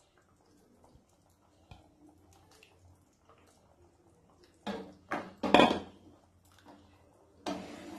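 Wooden spatula stirring fish pieces through a boiling curry in a metal kadai: faint bubbling at first, then a few loud sloshing scrapes about five seconds in and again near the end.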